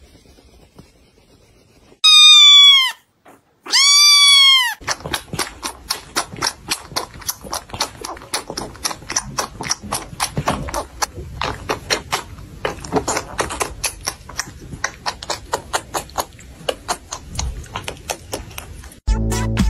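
A kitten mewing twice, two loud high calls that rise and fall, then suckling at a milk bottle with rapid wet sucking clicks, about three or four a second. A short loud low noise cuts in at the very end.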